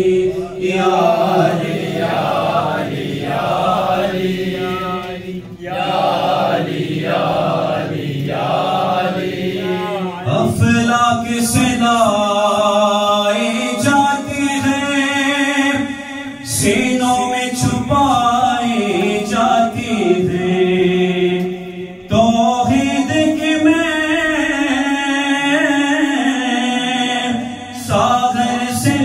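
Devotional manqabat singing: for about the first ten seconds, voices chant "Ali" over and over in a steady rhythm. Then a lone male voice sings long, held, wavering phrases through a microphone.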